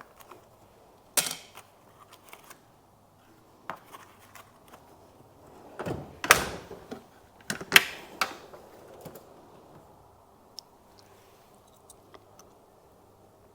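Handling noises: a scattered series of sharp clicks and knocks, busiest and loudest about six to eight seconds in, over a faint steady hum.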